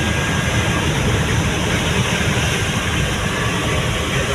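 Steady in-cab running noise of a Tata pickup cruising on a wet highway: engine and tyre noise on the wet road.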